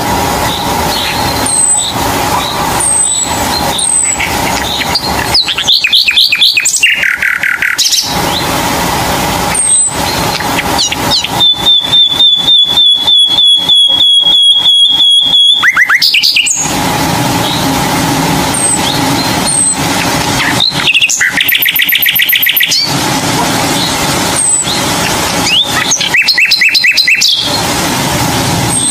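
Birds singing: short high chirps and fast trills, with one long steady trill lasting about four seconds midway, over a steady background hum.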